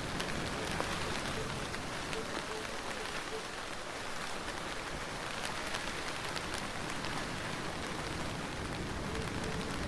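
Steady rainstorm, rain falling on surfaces with the tick of individual drops scattered through the even hiss, and no thunder.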